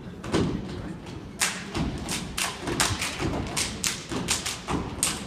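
Step team's body percussion: foot stomps on the stage floor and sharp hand claps in a tight rhythm, sparse at first and then quickening to about four strikes a second from about a second and a half in.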